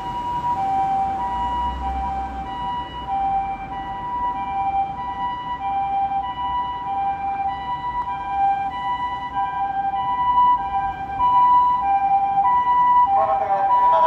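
Japanese ambulance siren sounding its two-tone hi-lo 'pee-po' call, a higher and a lower tone taking turns at an even pace, growing louder as the ambulance approaches. A voice joins about a second before the end.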